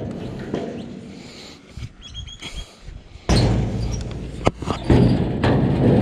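Heavy wooden folding chair being loaded into a box trailer: after a quieter start, wood suddenly clatters and scrapes against the trailer about three seconds in, with a sharp knock a second or so later.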